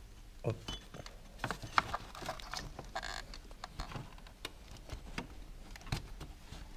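Hand-fitting a timing belt onto the sprockets and pulleys of a Peugeot 1.6 HDi (DV6) diesel engine: scattered light clicks, taps and rubbing as the belt is worked around the toothed wheels, with a brief rasp about three seconds in.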